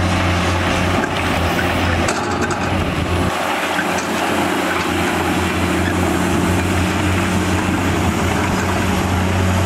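Heavy diesel engines of Komatsu PC210 crawler excavators, the nearest one close by, running steadily as a loud, constant drone while they dig. The deepest part of the engine hum drops briefly a little after three seconds in and then returns.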